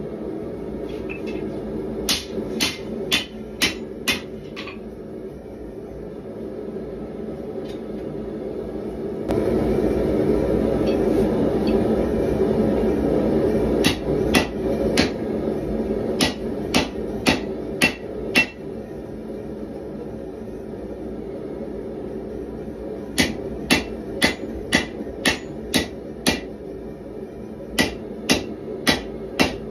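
Hand hammer striking red-hot 1095 carbon steel on an anvil in runs of sharp, ringing blows: about six a couple of seconds in, about ten in the middle, then two more runs near the end. Underneath is the steady roar of a gas forge, louder for several seconds before the middle run.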